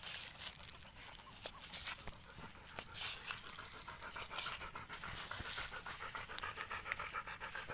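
A dog panting close to the microphone, with quick breathy strokes that settle into a fast, even rhythm in the second half.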